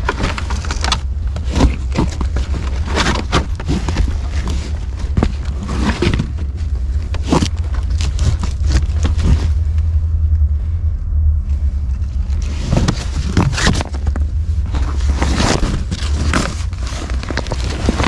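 Footsteps and rustling through brush and litter, irregular crunching strokes that pause for a couple of seconds in the middle, over a steady low rumble.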